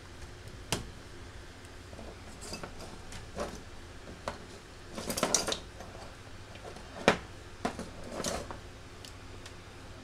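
Scattered light clicks and clatter of an opened smartphone and its charging cable being handled on a rubber work mat, with a short cluster about halfway and the sharpest knock about seven seconds in, over a faint steady low hum.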